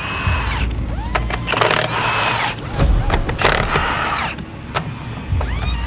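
Cordless impact wrench spinning lug nuts off a truck wheel in several short bursts, its motor winding down after each.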